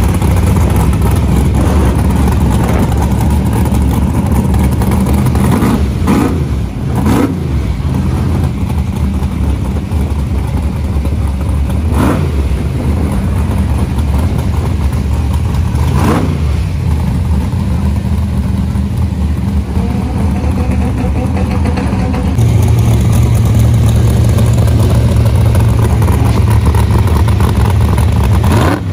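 Car engine running steadily, with a few sharp cracks spaced a few seconds apart; it gets louder about two-thirds of the way through.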